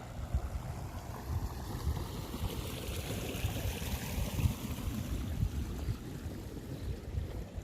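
Wind buffeting the microphone in gusty low thumps, over a steady rushing hiss that swells in the middle.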